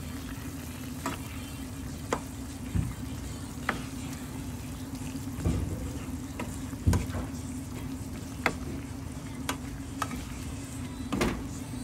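Chicken gizzards, hearts and tails sizzling in a pan as the adobo's sauce cooks down, with a utensil clicking against the pan about once a second and a steady low hum underneath.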